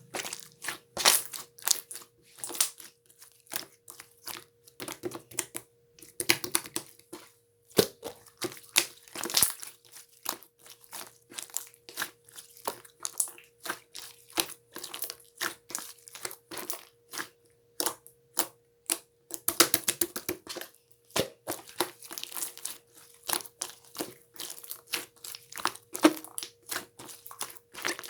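Marbled slime being squeezed and worked by hand, giving a fast, irregular run of clicks and crackles.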